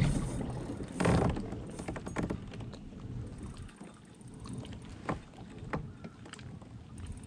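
Water lapping around a kayak in gusty wind, with two louder gusts near the start and a couple of sharp knocks on the hull about five and six seconds in.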